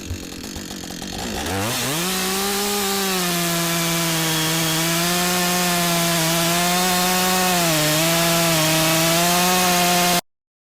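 A gasoline chainsaw's two-stroke engine revs up from a lower idle about a second and a half in, then runs at high speed cutting wood. Its pitch sags briefly under load, most clearly near 8 s. It cuts off abruptly shortly before the end.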